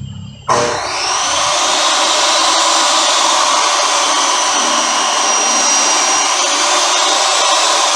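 A high-speed electric motor switches on about half a second in, spins up with a rising whine, then runs steadily at full speed.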